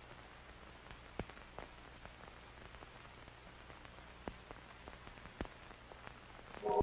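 Faint steady hiss with a few soft scattered clicks. Pulsing music starts right at the end.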